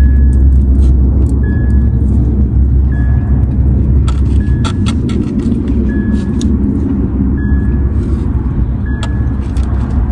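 A car's warning chime beeps again and again, one short tone about every second and a half, over a steady low rumble inside the car. Scattered clicks and rattles from handling things come through as well.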